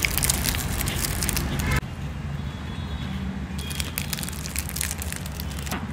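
Crisp biscuit crunching as it is chewed close to the microphone. The crunching is dense for the first two seconds, then quieter, with a few more crunches about halfway through.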